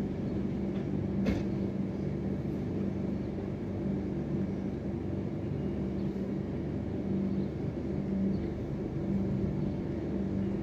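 A steady low hum over a rumble, with one short click a little over a second in.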